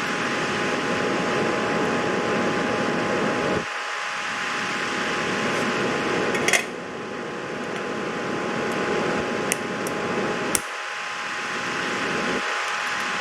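A fan running steadily, a whir with a faint steady tone in it. A few sharp light clicks come about halfway through and again near two-thirds through.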